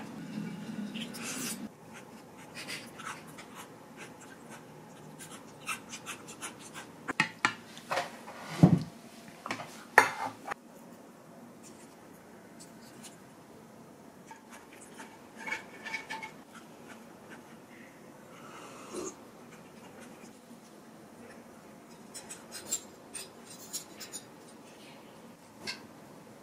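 Metal fork and spoon clinking and scraping against a pan of pasta during a meal: scattered light clicks and scrapes, with a couple of louder knocks about a third of the way in.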